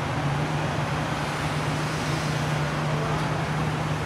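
Steady engine hum with a constant low drone over street noise, holding the same level and pitch throughout.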